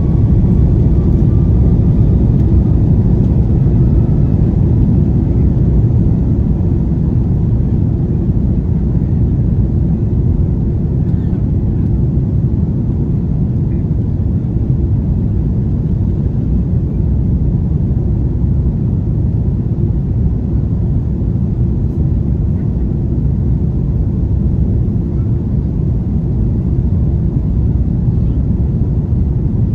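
An Airbus A330-243's Rolls-Royce Trent 700 engines at takeoff thrust during the takeoff roll, heard inside the cabin: a loud, steady, deep rumble, with a faint whine rising slightly in the first few seconds.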